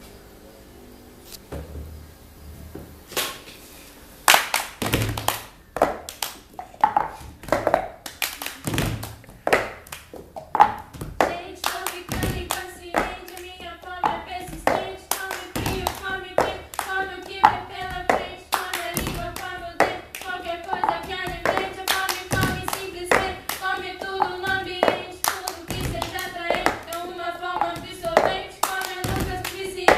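Cup game rhythm: a cup tapped, slapped and set down on a tabletop, with hand claps in a repeating pattern. A voice sings along from about eleven seconds in.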